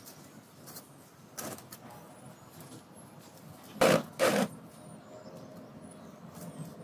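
Two short scrapes close together about four seconds in: the heavy concrete sculpture being shifted on the concrete work table. There is a fainter scrape earlier from patching the cylinder with a wooden stick.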